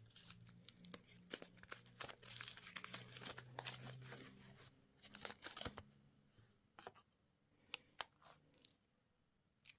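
A candy wrapper being torn open and crinkled: dense crackly rustling for about the first six seconds, then a few scattered sharp crinkles.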